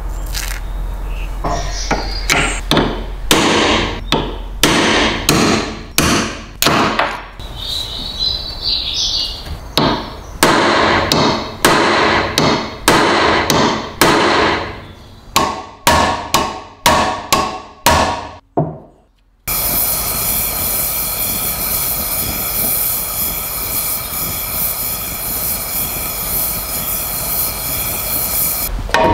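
Hammer striking a steel pin punch to drive seized parts out of a rusted stapler mechanism: a long, irregular series of sharp metallic strikes, some ringing briefly. About two-thirds of the way through it cuts to the steady hiss of a gas torch flame heating the rusted metal.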